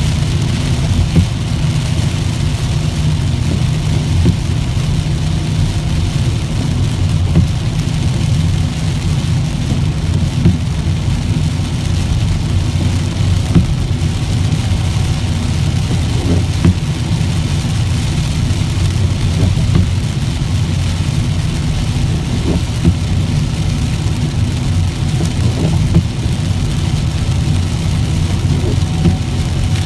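Steady low rumble of a car driving at highway speed in heavy rain, heard from inside the cabin: tyre and road noise on the wet pavement with a hiss of rain and spray, and scattered light taps.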